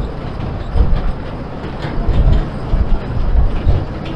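Kurobe Gorge Railway's narrow-gauge trolley train running, heard from inside its open-sided car: a steady rumble of wheels on the rails with irregular low clattering thumps.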